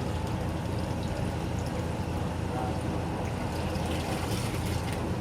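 GE Filter Flo top-loading washing machine running: a steady motor hum with water sloshing in the tub.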